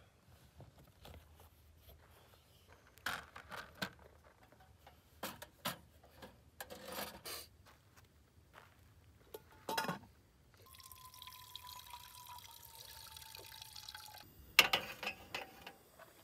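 Knocks and clatter of gear being set down on a wooden picnic table, then water poured from a plastic gallon jug into a small cooking pot for about four seconds, followed by a sharp clatter as things are put down.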